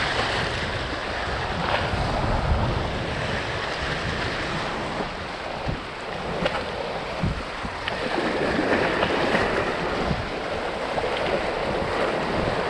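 Sea waves washing and splashing against concrete breakwater blocks, with strong wind rumbling on the microphone.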